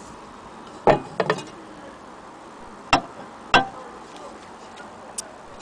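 A handful of sharp knocks and clicks from handling a portable gramophone's felt-covered turntable platter against its case and spindle: one about a second in, a quick pair just after, two more around three seconds in, and a faint tick near the end.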